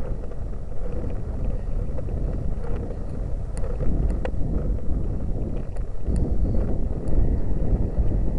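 Wind buffeting the microphone of a camera carried on a moving bicycle: a steady low rumble, with a few faint clicks in the middle.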